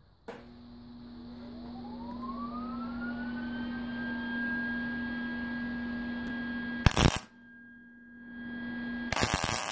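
Lincoln Electric MIG welder striking two short tack welds on a broken steel bolt, each a brief loud crackle of the arc, about seven seconds in and again near the end. Before them a machine whine rises in pitch over about three seconds and then holds steady over a low hum.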